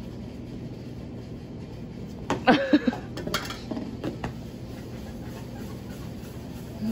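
Steel mixing bowl and pizza dough being handled on a counter: a short burst of clattering and scraping a little over two seconds in, then a few lighter knocks, over a steady low hum.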